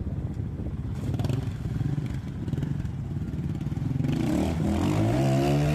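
Trials motorbike engine running unevenly at low revs, then revved up hard about four seconds in, its pitch rising and holding high near the end.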